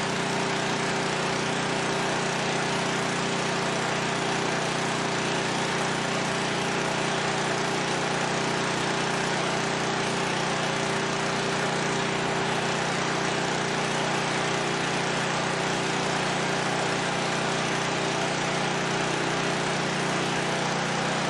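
13 HP Honda engine running steadily on wood gas from a gasifier, driving a generator, at an even speed with no changes in pitch or level.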